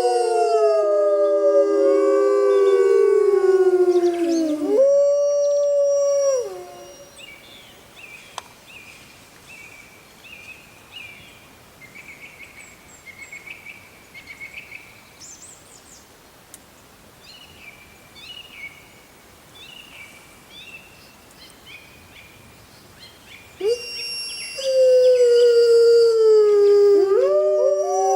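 A pack of wolves howling in chorus, several overlapping howls sliding downward in pitch. About six seconds in the howling stops, leaving faint high chirping calls. The chorus starts again near the end.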